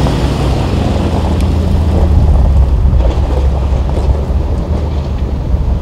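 Mercedes-Benz G-Class engine running at a low, steady drone as the vehicle crawls away over gravel.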